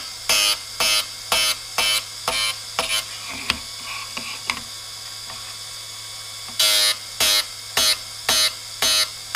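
TDR 82B drill grinder splitting the point of a drill bit: the wheel motor hums steadily while the bit is stroked against the wheel in short grinding passes, about two a second, each a brief ringing screech. The strokes stop for a couple of seconds past the middle while the holder is turned, then start again.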